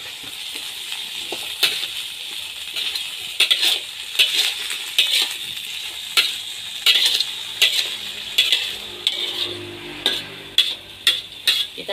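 Metal spatula scraping and clinking against a wok as cut green beans are stir-fried, over a steady sizzle from the pan. The scrapes come in quick irregular strokes, more often in the second half.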